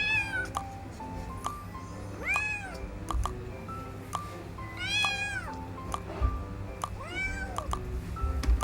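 Kitten meowing four times, each call a short rise and fall in pitch, a couple of seconds apart.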